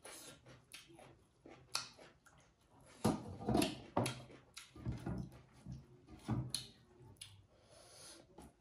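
Close-miked eating noises: wet chewing and lip smacks in short, uneven bursts, loudest in the middle, with a glass bowl set down on a wooden table and fingers mixing rice on a steel plate.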